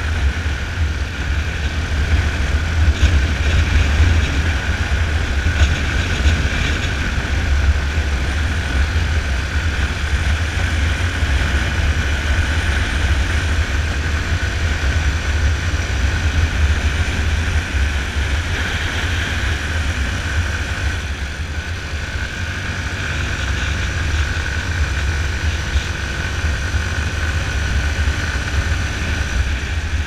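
Yamaha Fazer 250 single-cylinder four-stroke engine running steadily at cruising speed, under heavy wind rush on the camera microphone.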